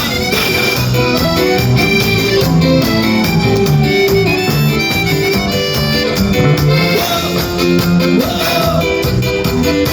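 Cuarteto band playing an instrumental passage without singing: a melody line over a steady beat.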